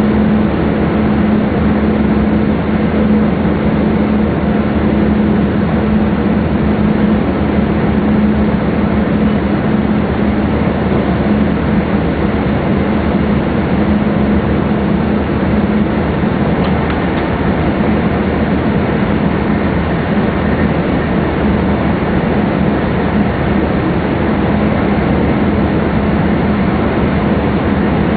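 Running noise of a MAX double-decker Shinkansen at speed, heard inside the upper-deck cabin: a steady rumble and rush with a constant low hum.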